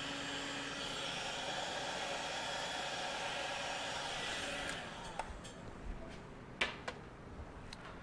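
Electric heat gun blowing steadily while shrinking clear heat-shrink tubing over a wiring connector; it stops about four and a half seconds in. A few light clicks and taps follow.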